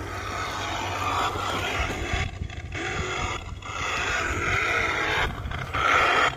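Grave Digger electric RC monster truck driving over playground wood chips: its motor and tyres give a whirring rush that cuts out briefly a few times.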